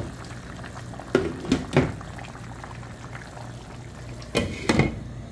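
Pot of green beans and meat in tomato sauce bubbling at a boil on a gas stove, with a steady low hum under it. Three short knocks come about a second in and two more near the end.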